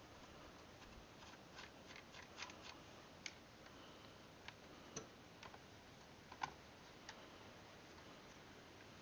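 Scattered light metallic clicks and taps of small hardware, nuts and washers, being handled and fitted onto the carburettor mounting studs of a Kohler CV15 engine. The sharpest click comes about six and a half seconds in.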